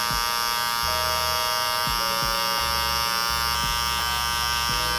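Gamma Rebel cordless hair clipper running with a steady hum as it is flicked through short beard and sideburn hair. Its pitch shifts slightly a few times as the blade meets the hair.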